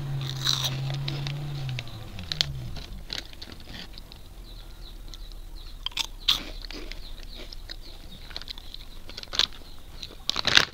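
Crisp fried potato sticks being bitten and chewed, with sharp crunches every second or few. A steady low hum underneath drops in pitch and dies away about two and a half seconds in.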